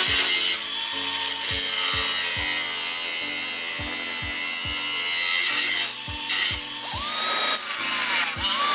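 Cordless angle grinder grinding metal on a snowmobile's tunnel, a dense high hiss that breaks off about 6 s in and builds again near the end. Background music with a steady beat plays underneath.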